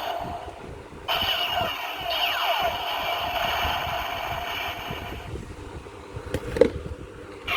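Electronic sound effects from a DX Kamen Rider OOO toy, played through its small speaker: sweeping, gliding electronic tones. A sharp knock comes near the end.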